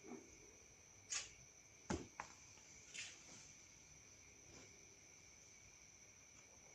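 Faint steady chirring of crickets, with a few soft short sounds every second or two and one sharp click about two seconds in.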